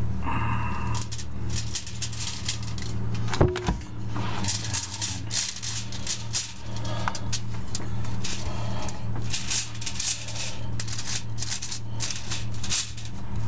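Aluminium foil crinkling and rustling while ground meat is scraped out of a metal bowl and spread across it with a spatula, with one sharp knock about three and a half seconds in. A steady low electrical hum runs underneath.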